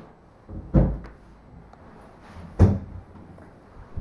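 Two dull thumps about two seconds apart, like fittings being shut or knocked.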